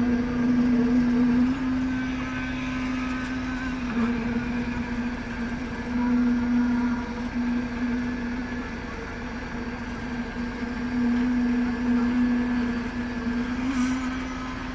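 Construction machinery running steadily: a strong, even engine hum that swells and fades every few seconds over a low rumble.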